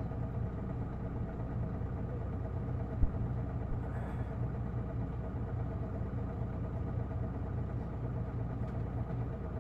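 Inside an Isuzu Erga city bus, its six-cylinder diesel engine running with a steady, unchanging hum. There is a single sharp knock about three seconds in.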